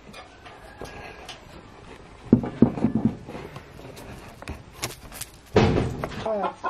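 Chickens clucking in short bursts, loudest near the end, with a couple of sharp knocks about five seconds in.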